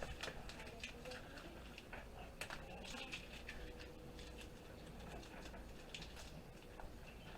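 Faint, irregular light clicks and taps of small computer parts, wires and plug connectors being handled, with a faint steady hum in the middle.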